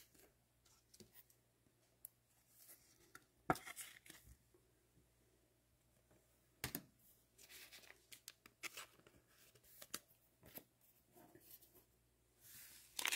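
Near silence broken by scattered faint clicks and short rustles of cards being handled, then, near the end, crinkling and tearing of a trading-card pack wrapper as the next pack is opened.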